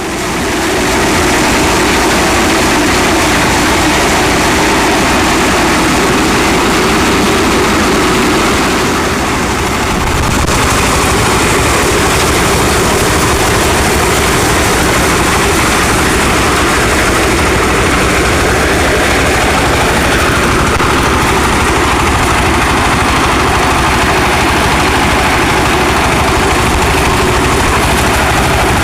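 Heavy farm machinery running steadily, a dense mechanical engine noise with a brief dip in level about nine seconds in.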